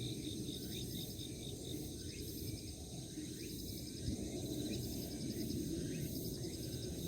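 Insects, crickets or similar, chirping in repeated rapid pulse trains, with short rising notes recurring about once a second over a steady low rumble of outdoor background.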